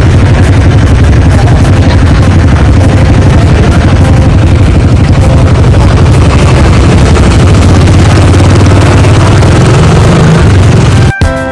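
Motorcycle engines running close to the microphone, a dense, rough, heavily distorted noise that cuts off abruptly near the end.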